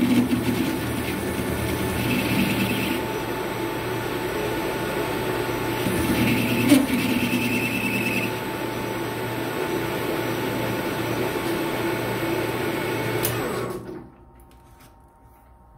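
Hafco AL-356V metal lathe running steadily with its chuck spinning, with one short knock a little before halfway. About fourteen seconds in it is switched off and the sound falls away sharply.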